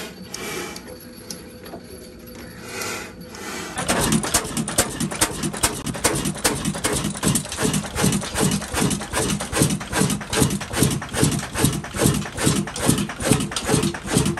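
Old black oil (diesel) stationary engine with large flywheels running a grain mill, beating in an even, loud rhythm of about three strokes a second. The level rises suddenly about four seconds in; before that the running is fainter and uneven.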